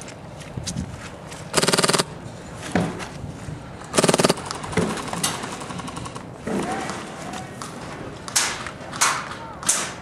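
Airsoft gun firing two short full-auto bursts, about two seconds apart, each a rapid even rattle of shots, with a few single knocks between.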